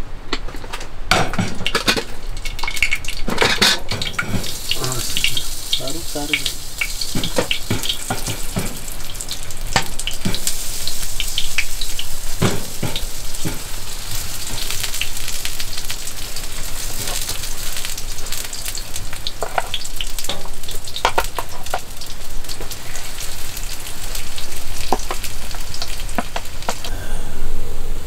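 Heavy rain falling: a steady hiss, with many separate drops and drips striking close by.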